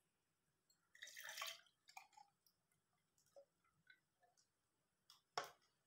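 A glass of milk poured into a saucepan, a short splash about a second in. Then a few faint drips and small clicks, and a sharp tap near the end.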